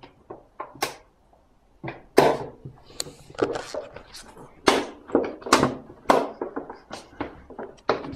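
A large plastic water bottle being knocked about and squeezed by hand: a run of sharp knocks and crackles at an irregular pace, the loudest about two seconds in.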